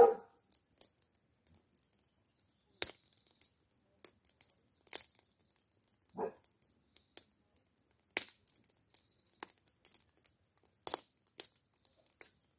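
Sparse crackles and rustles, scattered irregularly with a brief soft blip about six seconds in. There is no steady buzzing.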